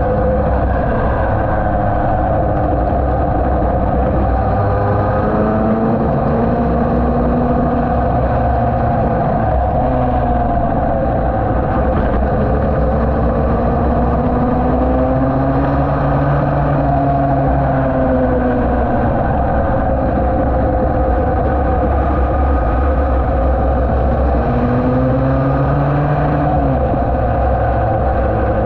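Yamaha TD1B's two-stroke twin engine running hard at racing speed, its pitch rising and falling as the revs change through corners and gear shifts, over heavy wind noise on the microphone.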